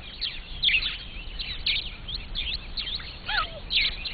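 Wild birds chirping: many short, quick chirps falling in pitch, with one louder call that drops in pitch about three seconds in.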